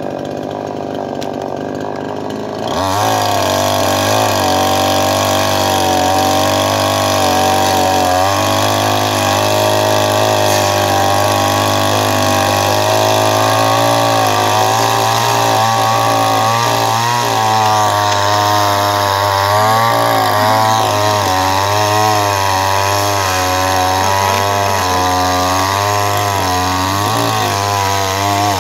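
Two-stroke chainsaw idling, then throttled up about three seconds in and cutting through a thick log. Its engine pitch rises and falls under the load of the cut, more so in the second half.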